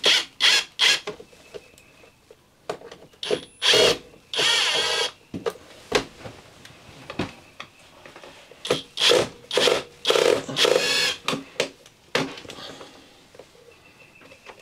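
Cordless Hercules driver running in short bursts, backing out the screws that hold an RV air conditioner's ceiling assembly. It runs in many brief spurts, with two longer runs of about a second, a little after the start and again past the middle.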